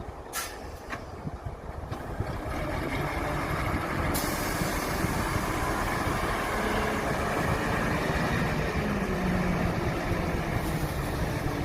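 Electric motors and gearing of radio-controlled model construction machines whirring as they work, with two sharp clicks in the first second. The whir grows louder about two seconds in, and a low hum joins it for a few seconds in the second half.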